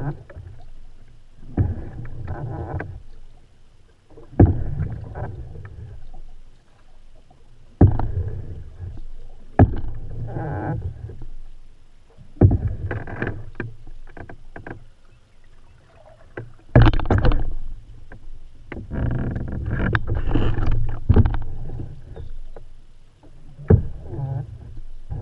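Canoe paddle strokes in lake water, about one every three seconds. Each starts with a sharp knock and is followed by a splashing swish.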